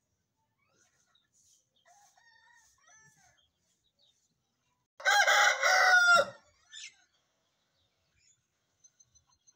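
Aseel rooster crowing once, about five seconds in: a single loud crow lasting just over a second that drops in pitch at the end. Faint chirps come before it.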